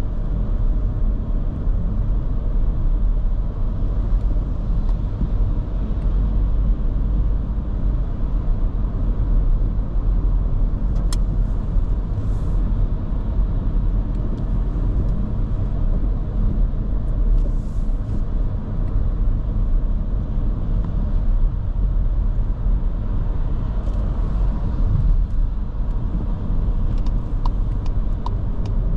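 Škoda Kamiq's 1.0 TSI three-cylinder turbo petrol engine running under way, with tyre and road noise: a steady low rumble. A quick run of light ticks near the end.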